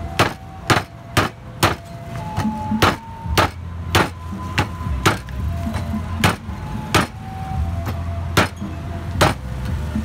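Repeated hard chopping strikes of a cleaver on a wooden chopping block, about two a second and unevenly spaced.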